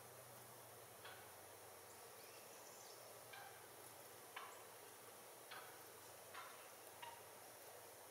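Near silence with six faint, short, sharp clicks spaced about a second apart.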